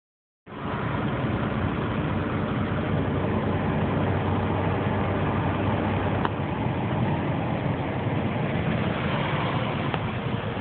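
Semi truck's diesel engine and road noise heard inside the cab while driving at speed, a steady drone that starts about half a second in, with one light click about six seconds in.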